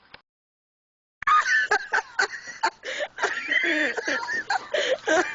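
A click, about a second of dead silence, then people laughing loudly and continuously.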